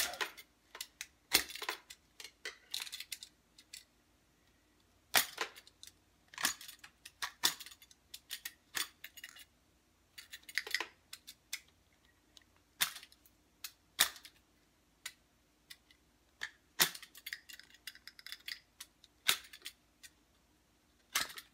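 Utility knife cutting and scraping the plastic head of a fly swatter off its twisted wire handle: irregular clicks, snaps and short scraping strokes with pauses between, plus a couple of longer rasping passages around the middle and past two-thirds of the way.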